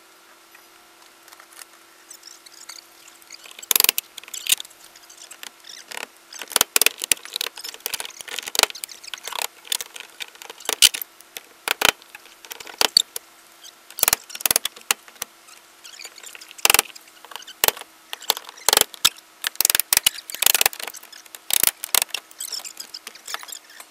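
Weathered wooden siding board being pried off the wall of an old house: irregular sharp cracks, creaks and knocks of wood and nails, starting about four seconds in and coming in clusters.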